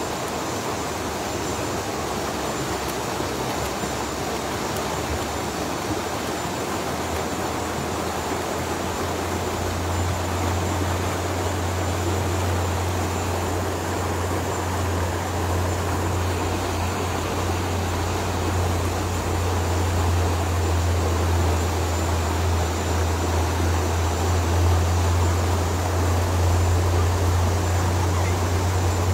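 Steady rush of a shallow rocky stream flowing over stones, with a low rumble that grows stronger about ten seconds in.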